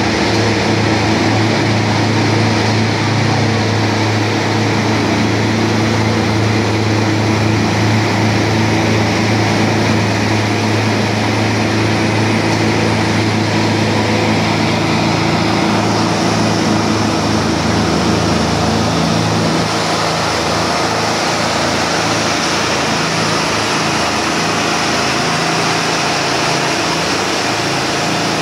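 Diesel engine of a Plasser 09-32 CSM track tamping machine running steadily with a low hum, the level dropping slightly about two-thirds of the way through.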